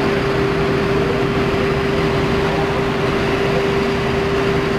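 Fire apparatus machinery running steadily: a constant engine-and-pump drone with an unbroken mid-pitched hum over it.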